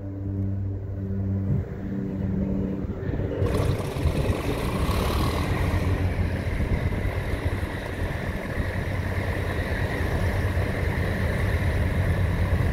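Hovercraft engines running with a low steady hum, then about three and a half seconds in the lift fans spool up and a loud rushing noise of air comes in and holds steady as the skirt inflates and the craft lifts onto its air cushion.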